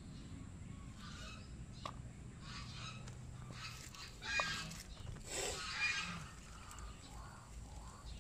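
Domestic fowl calling in the background: a few harsh calls around four seconds in and again around five to six seconds, over a faint steady background.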